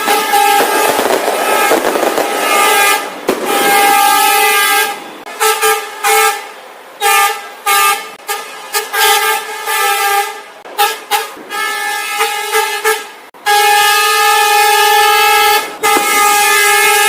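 Vehicle horns honking: long steady blasts, a run of short choppy toots in the middle, then long blasts again toward the end.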